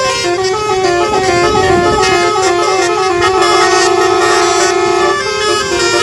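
A bus's multi-trumpet telolet horn (basuri) playing a fast melody, the notes stepping up and down several times a second, with one long held note near the middle before the tune resumes.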